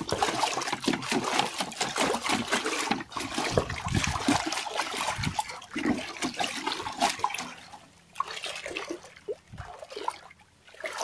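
A hand stirring and splashing muddy water in a plastic-lined azolla tank, mixing in the cow-dung slurry. Busy sloshing and splashing for most of the stretch, thinning to scattered, quieter splashes near the end.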